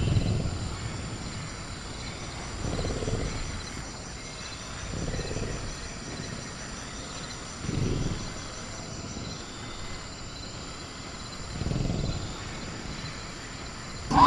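Sound-effect velociraptor giving four faint, low growls about a second each, spaced several seconds apart, over a steady jungle bed with a thin high cricket drone.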